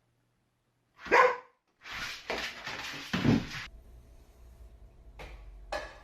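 Dog barking, with a loud single bark about a second in and more barking around three seconds.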